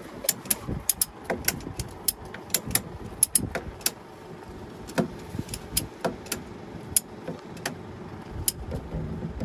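Ratchet tie-down strap being cranked tight by hand, the ratchet buckle clicking quickly, about three or four clicks a second, then slowing to about one click a second for the last few seconds as the strap tightens.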